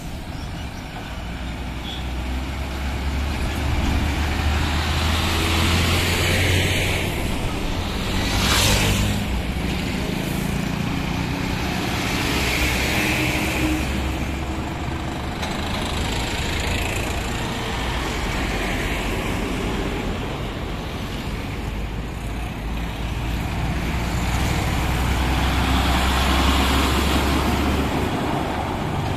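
Heavy diesel trucks and tanker lorries passing slowly one after another, their engines giving a steady low drone that swells as each goes by. A brief burst of hiss about nine seconds in.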